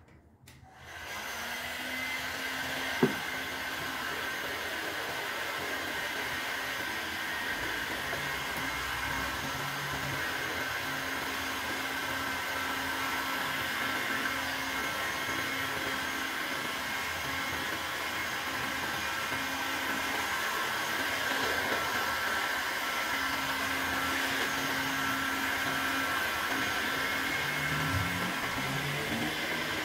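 Bosch Professional heat gun blowing hot air onto the wooden blade of a cricket bat: a steady rushing fan noise with a faint hum, coming on about a second in. A single sharp knock about three seconds in.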